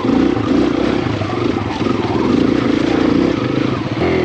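Kawasaki KLX140RF dirt bike's single-cylinder four-stroke engine running steadily at part throttle while riding, its note wavering a little with the throttle.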